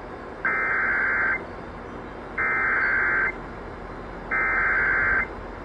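Emergency Alert System SAME header: three bursts of buzzing digital data tones, each just under a second long with about a second's pause between them, over a steady broadcast hiss. The bursts carry the coded alert data that opens an EAS activation.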